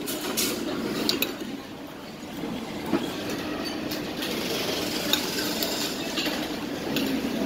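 Scattered clinks of tableware (chopsticks and dishes) over a steady background hum, about half a dozen sharp clinks spread through.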